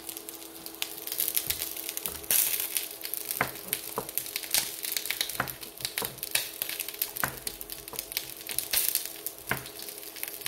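Chef's knife slicing mini sweet peppers on a plastic cutting board: irregular crisp cuts and knife taps on the board, some with a crunch, over a steady faint hum.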